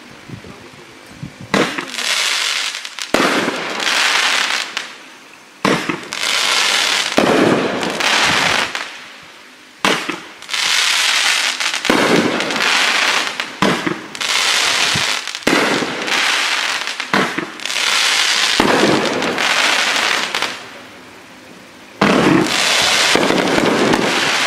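Sunwing 1 Minute Absolute Pyro, a 20-shot 500-gram fireworks cake, firing shot after shot: each sharp launch is followed by a second or two of crackling from the bursting shell, about a dozen shots at one every one and a half to two seconds. A pause of about two seconds comes shortly before the last shot near the end.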